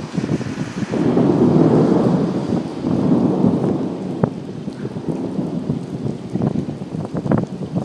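Thunder rumbling during a severe thunderstorm, rolling in about a second in and lasting a few seconds, over steady rain. A few sharp knocks follow later.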